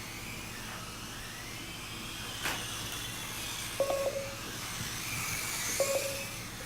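Kyosho Mini-Z electric RC cars racing, their motors whining up and down in pitch over a steady hiss. A sharp knock comes about two and a half seconds in, and two short electronic beeps come near the four- and six-second marks.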